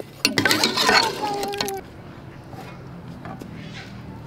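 Metal ladle stirring stew in an aluminium pressure-cooker pot, scraping and clinking against the pot, with a brief ringing of the metal; the stirring stops a little under two seconds in.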